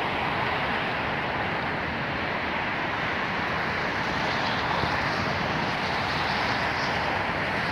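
Steady, even rushing noise of open-air ambience, with no distinct events.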